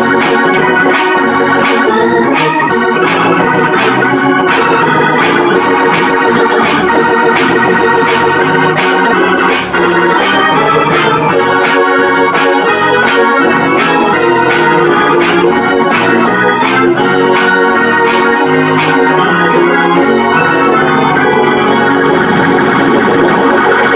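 Organ music with a steady beat, loud and continuous; the beat drops out near the end.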